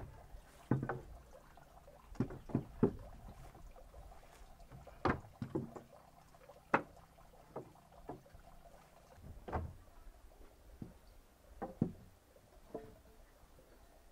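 Round wooden poles knocking against a wooden bed frame as they are handled and laid across it as supports: about a dozen irregular wooden knocks and clacks with quiet gaps between them.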